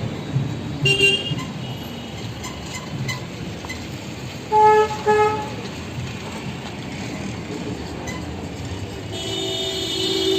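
Vehicle horns honking in street traffic over a steady traffic hum: a short honk about a second in, two quick beeps near the middle, the loudest, and a longer honk near the end.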